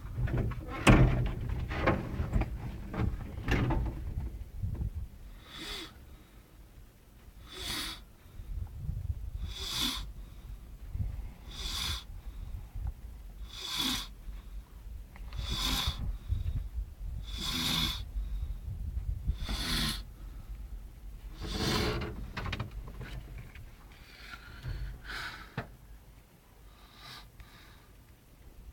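A sleeping person snoring heavily: harsh, hissing snores that come about every two seconds, after a louder, choppier stretch in the first few seconds.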